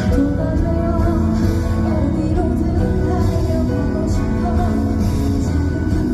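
Live concert music recorded from the audience: band accompaniment with singing.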